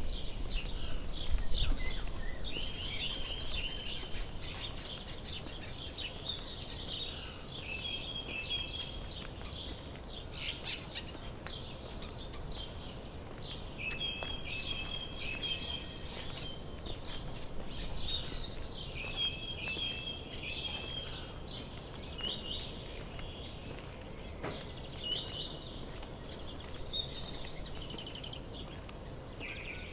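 Small songbirds singing and calling: bursts of quick repeated chirps and short trills come and go, over a low background rumble.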